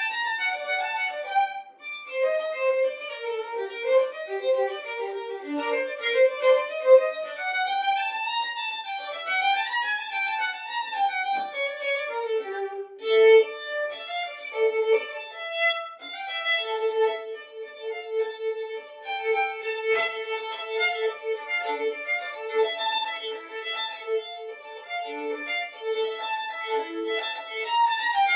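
Solo violin playing a fast passage of quick, shifting notes. About halfway through it changes to a steadily repeated low note with a higher line moving above it, like a drone under the melody.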